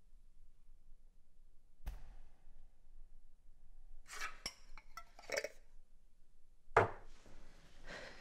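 Glassware and crockery clinking and knocking as things are handled on cabinet shelves: a single sharp knock about two seconds in, a run of small clinks around the middle, and a heavier knock near the end, the loudest sound.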